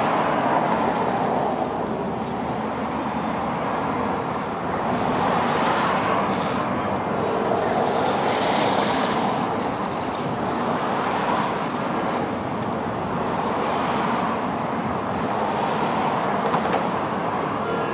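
Road traffic: cars passing close by one after another, some driving over the railroad grade crossing, their tyre noise swelling and fading every few seconds.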